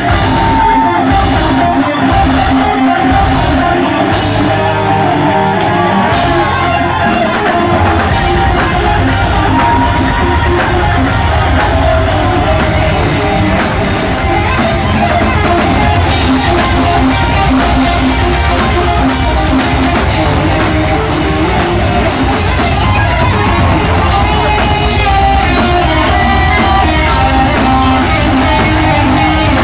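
Live metal band playing: distorted electric guitars, bass and drum kit. For the first several seconds the band hits in stop-start stabs with short gaps, then drives on continuously with a guitar melody on top.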